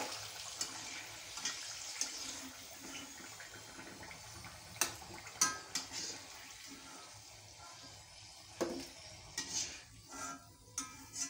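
Potato halves frying in hot oil in a kadhai: a steady sizzle and bubbling that slowly fades as the pieces are lifted out. A metal slotted spatula clinks against the pan a few times, mostly near the end.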